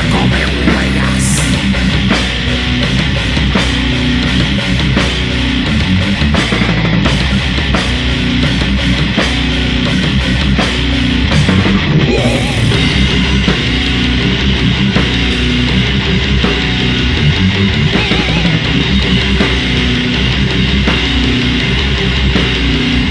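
Grindcore band playing: heavily distorted electric guitar, bass and drums, with repeated cymbal hits up to about halfway through, where the pattern changes.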